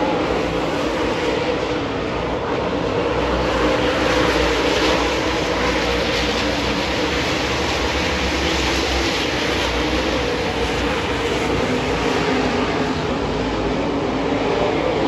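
Pack of dirt late model race cars running laps on a dirt oval: a continuous, loud blend of V8 engines at racing speed, swelling slightly as the cars come around.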